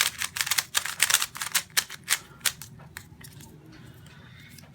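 Meilong 3x3 speedcube being turned fast during a solve: rapid plastic clicking of the layers for about two and a half seconds, then much softer turning. The cube feels dry and sandy inside.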